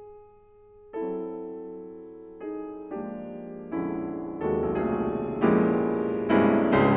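Steinway concert grand piano played solo: a single soft note, then chords struck one after another, each left to ring, coming closer together and growing louder to a loud peak near the end.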